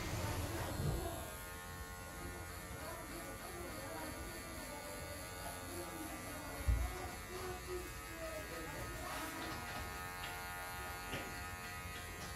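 Electric hair clipper running with a steady buzz, with a soft low thump about seven seconds in.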